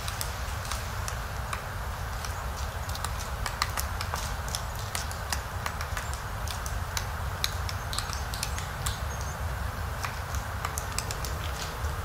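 Three-toed woodpecker pecking and prying bark off a pine trunk while foraging for insects under it: irregular light taps and crackles of flaking bark, over a steady low rumble.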